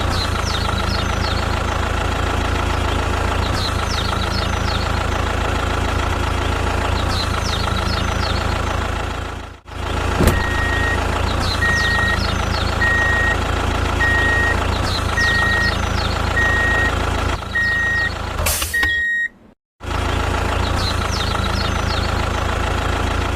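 Vehicle engine running steadily, joined about halfway through by a reversing alarm beeping about eight times at an even pace.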